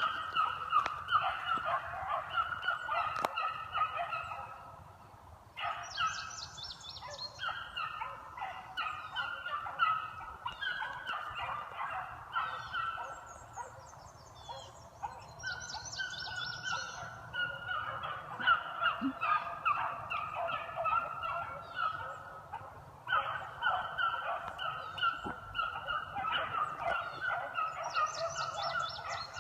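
A pack of beagles baying together in a steady stream of overlapping, rapidly repeated cries: hounds giving tongue as they run a scent line. The chorus thins briefly a few times before filling in again.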